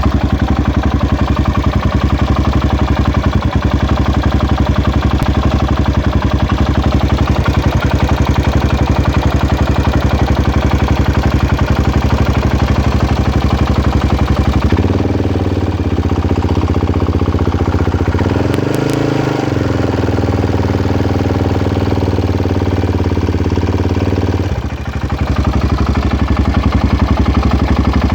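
Vehicle engine running with a fast, rough, choppy clatter, a noise its owner calls weird. About halfway it turns to a smoother, steadier note with one brief rev up and back down, then the rough clatter returns near the end.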